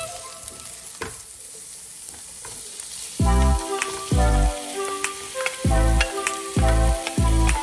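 Squid sizzling as it is stir-fried in a hot pan, with the light clicks of the stirring utensil. About three seconds in, music with deep, repeated bass notes comes in over the frying.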